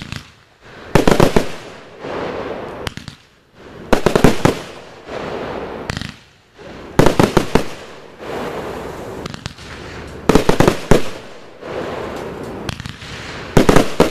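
Consumer fireworks going off: five volleys of rapid, sharp bangs about every three seconds, with a hissing crackle between them.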